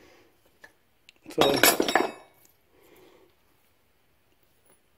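Metal clinking: a hand tool or steel part knocks against metal with a brief high ring, about one and a half seconds in, followed by faint handling noise.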